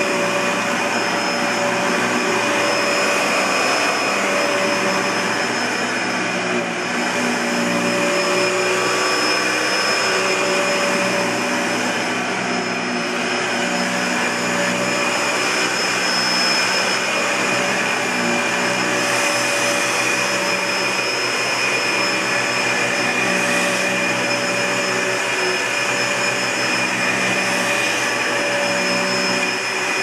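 Dyson DC65 Ball Animal bagless upright vacuum cleaner, with its Panasonic motor, running steadily while being pushed back and forth over carpet, with a constant high whine over the rush of suction.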